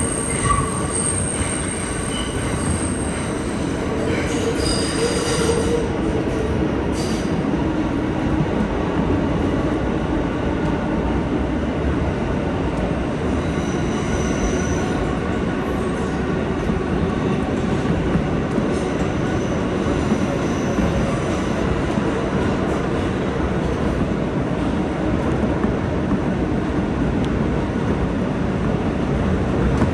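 New York City subway train running through a tunnel, heard from inside the car: a steady rumble of wheels on rail. Thin high wheel squeals come and go in the first few seconds and again briefly around the middle.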